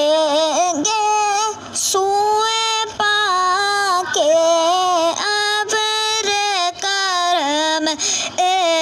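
A high solo voice singing a devotional Urdu naat, holding long wavering notes with short breaks between phrases.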